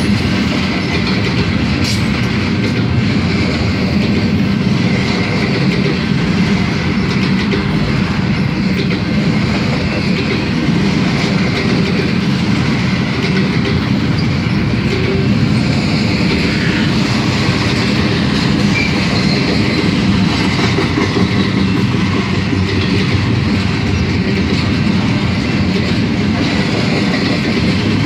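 Piggyback freight train's cars rolling past, a steady rumble of steel wheels on rail that holds even throughout.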